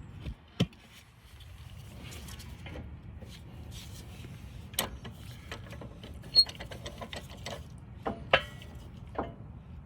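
A C-clamp being turned slowly to push a rear brake caliper piston back into its bore, with scattered sharp metal clicks and knocks over a steady low hum.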